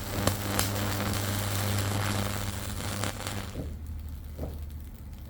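Microwave oven transformer's high voltage arcing across an LED strip's circuit board: a loud mains hum with crackling and sizzling and a few sharp snaps in the first second. The arc dies down about three and a half seconds in, leaving a fainter hum.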